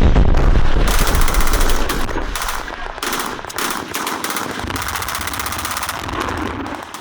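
Automatic machine-gun fire: rapid, continuous bursts of shots, opening with a heavy low boom and tapering off near the end.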